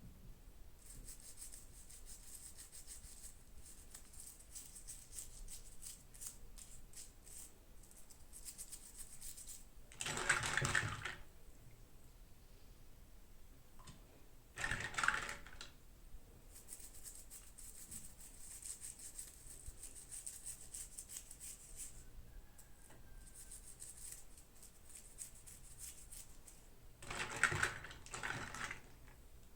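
Toy packaging being handled and opened: runs of fine crinkling and clicking, with three louder rustling, tearing bursts, about ten seconds in, about fifteen seconds in, and near the end.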